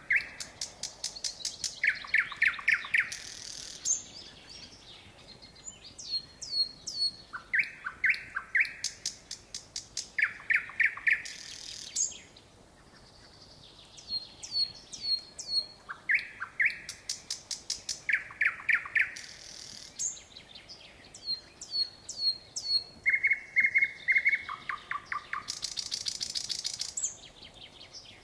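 Nightingale singing in varied phrases separated by short pauses: fast runs of dry clicks, rows of loud repeated notes, and high down-slurred whistles.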